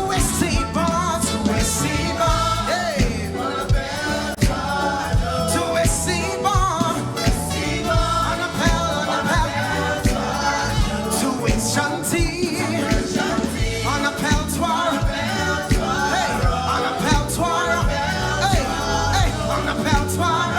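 Live gospel praise music: a choir and congregation singing together over a band with a steady drum beat and bass.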